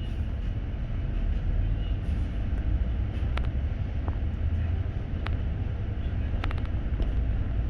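Double-decker city bus heard from inside the cabin: a steady low engine and road rumble, with a few sharp clicks or rattles from the bus body, including a quick cluster of them near the end.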